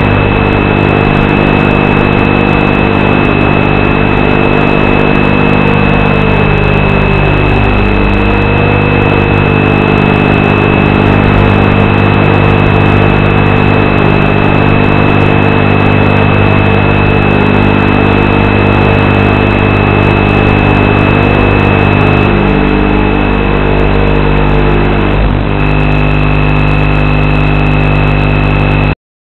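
Steady electronic buzz and hiss from an analog FPV video link's audio, with a constant high whine and many steady low hum tones under a faint wobbling tone. It cuts off suddenly just before the end.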